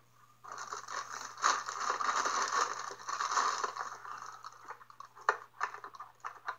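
Clear plastic bag crinkling as hands handle a bagged Traxxas Rustler RC truck, heard through a laptop's speaker. The crinkling is steady for the first few seconds, then breaks into scattered crackles.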